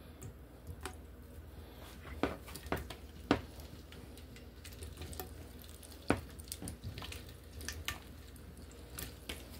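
Slices of andouille sausage dropped into a skillet of bacon grease and pushed into place by hand: scattered soft taps and clicks of the pieces against the pan.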